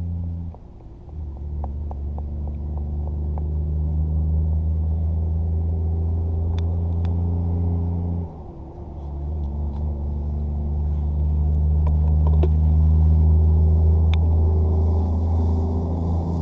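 An engine running steadily at a low, even pitch. It drops off sharply twice, about half a second in and just past eight seconds, and picks straight back up each time.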